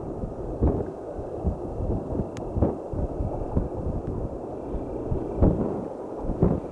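Wind buffeting an outdoor microphone: a low rumble broken by irregular thumps.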